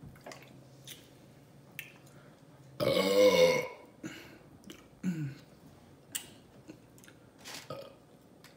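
A woman's loud burp, under a second long, about three seconds in, followed about two seconds later by a shorter, softer burp that falls in pitch. A few soft mouth clicks are heard around them.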